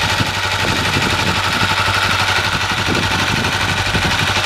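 Honda Silk Road's air-cooled single-cylinder four-stroke engine idling steadily, with rapid even firing pulses. It is running with flushing oil in the crankcase, circulating it to clean the engine out before the oil change.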